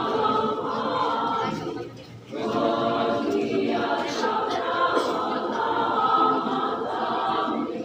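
Women's choir singing a cappella, with a short break between phrases about two seconds in.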